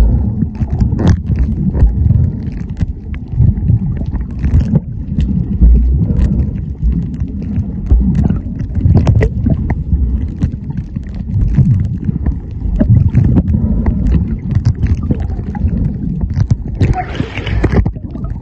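Muffled low rumbling and gurgling of water against a camera microphone held underwater, with many scattered clicks and crackles. Near the end there is a short burst of brighter hissing, splashing noise.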